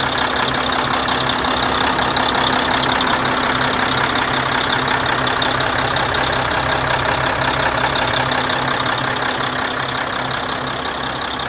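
Mack R-Model truck's diesel engine idling steadily, heard up close at the open engine bay.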